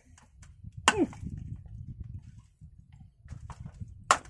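Two sharp whacks, about a second in and near the end, from a club striking a freshly caught barracuda to stun it. Each blow is followed by a short low falling sound, over a low steady rumble.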